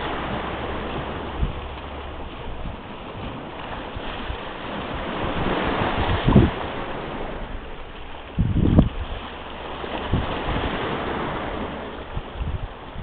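Wind blowing across the camera microphone, with two strong low buffets from gusts, one midway and one about two-thirds through, over the steady wash of small waves on the shore.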